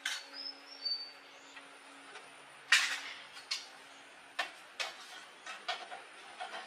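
A series of sharp clicks and knocks from hand tools and metal parts in repair work, the loudest about three seconds in, over a faint steady hum.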